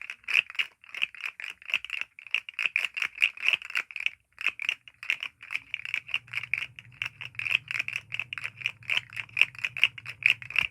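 Rapid clicking of plastic buttons on a game-controller-shaped fidget toy, several clicks a second in an uneven, continuous run.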